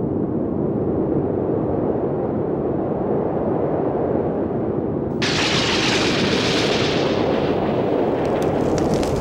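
A heavy rumbling sound effect, like crumbling rock or an explosion. A hissing rush joins abruptly about five seconds in, and crackling clicks come near the end.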